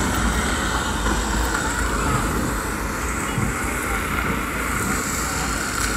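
Steady outdoor background din: a low rumble with a hiss above it, and faint voices mixed in.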